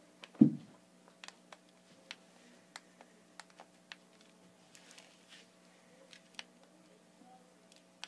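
A single dull thump, then scattered faint sharp clicks and taps at irregular intervals over a steady low electrical hum.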